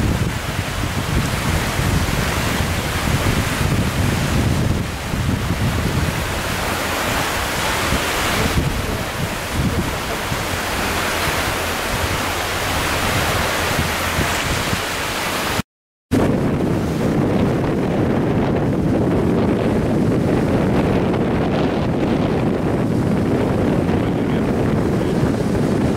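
Small waves breaking on a sandy beach, with wind buffeting the microphone. The sound drops out for an instant about two-thirds of the way through. After that the noise is deeper and duller, mostly wind rumble on the microphone.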